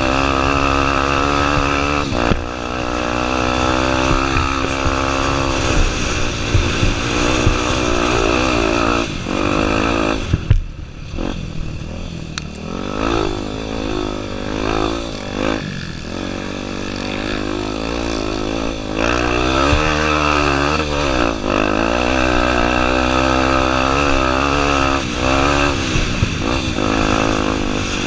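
Honda Tornado 250's single-cylinder four-stroke engine under constantly changing throttle, revving up and down. The engine falls away sharply about ten seconds in, then picks back up.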